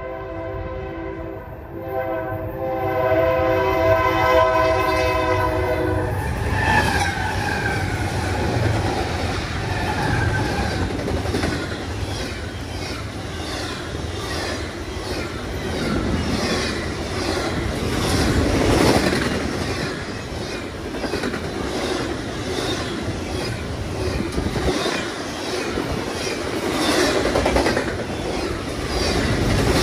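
Double-stack container freight train passing close by. The locomotive horn sounds a steady multi-note chord that cuts off about six seconds in. After that the stack cars roll past with a steady rumble and a regular clickety-clack of wheels over the rail joints.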